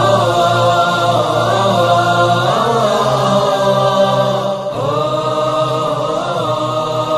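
Background vocal music: a chanted melody of long held, gently wavering notes over a steady low drone, with new phrases beginning about two and a half seconds in and again near five seconds.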